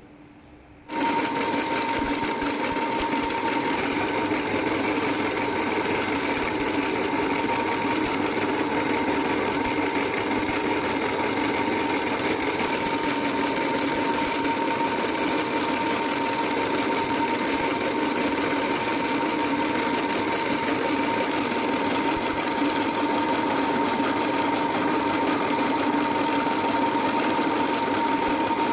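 Electric meat grinder switched on about a second in, its motor then running steadily with a constant whine, grinding snack pellets.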